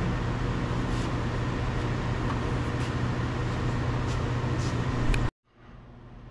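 Steady mechanical hum with an even hiss, as of running shop machinery, with a few faint light clicks. It cuts off abruptly about five seconds in, leaving a much quieter background.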